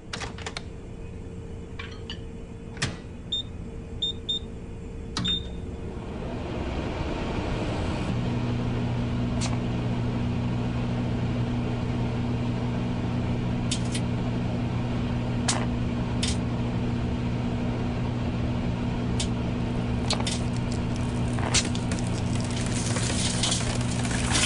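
Microwave oven: a few clicks and short keypad beeps, then the oven starts and runs with a steady hum. Sharp crackling snaps come over the hum and grow thicker near the end, as the mobile phone inside sparks.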